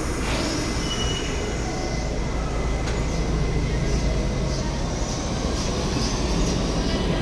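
R68 New York City subway train pulling out of an underground station, a steady low rumble that grows slowly louder as it picks up speed.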